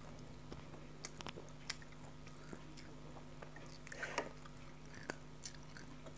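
Faint close-up chewing of rice and curry, with scattered small wet clicks and lip smacks and a brief wetter squish about four seconds in, over a faint steady low hum.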